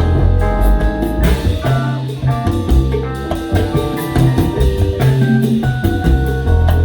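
Live salsa band playing: a driving bass line and hand percussion and drums under held melodic notes, with a cymbal wash coming in about a second in.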